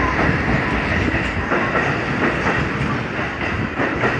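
JR East E233-1000 series electric commuter train pulling out, its cars rumbling past with the wheels clacking over rail joints. The rumble eases a little near the end as the last car draws away.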